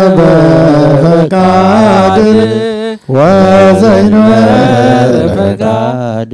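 Several male voices chanting an Ethiopian Orthodox prayer for the dead in long, drawn-out melodic lines over a held low note, with a brief break about halfway through.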